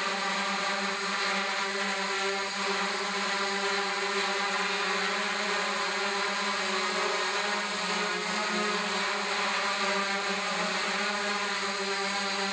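DJI F550 hexacopter hovering: its six electric motors and 8x4.5 propellers give a steady multi-tone buzzing hum that holds an even pitch and level.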